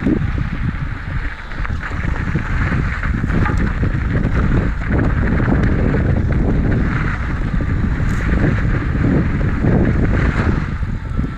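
Wind buffeting the microphone of a helmet or body camera over the steady rumble and rattle of a mountain bike rolling over a rough dirt trail.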